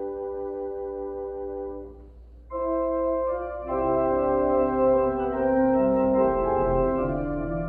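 Church organ playing sustained chords: a held chord is released about two seconds in, and after a brief pause new chords enter, growing fuller with deep bass notes from about four seconds in.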